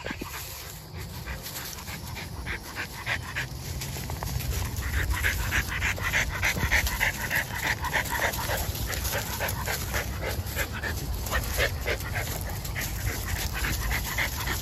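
American Bully puppies play-fighting on dry leaf litter: dog panting over a steady crackle of leaves crunching under paws and feet.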